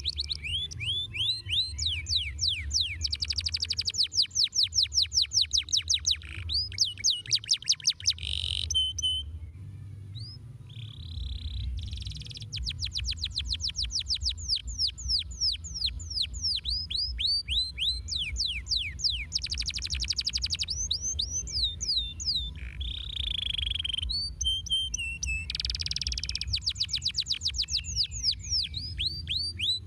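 Domestic canary singing a long song of fast rolling trills, each a rapid run of high notes sweeping down in pitch, delivered in phrases at different speeds with short breaks about a third of the way in and again past two thirds.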